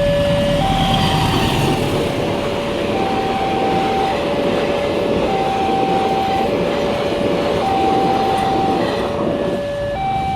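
Automatic level-crossing early warning alarm sounding a slow two-tone signal through a TOA horn speaker, switching between a higher and a lower tone about every second, while a train passes over the crossing, its noise fading near the end.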